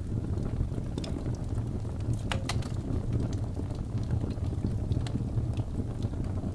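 Wood fire crackling in a fireplace: a steady low rumble of burning with scattered sharp pops, a louder double pop about two and a half seconds in.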